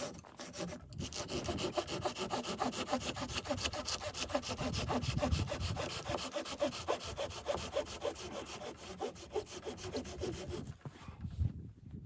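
Hand saw cutting through wood, a long run of repeated back-and-forth strokes that stops near the end.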